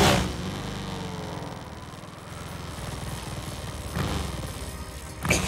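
Sport motorcycle engine running with a steady low note as the bike rides off. The sound eases over the first couple of seconds after a louder start, then picks up slightly about four seconds in.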